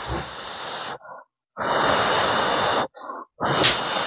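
A person's forceful, breathy exhalations, three in a row, each about a second long.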